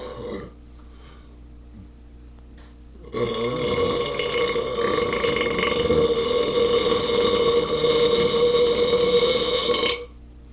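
A long, loud burp lasting about seven seconds, starting about three seconds in.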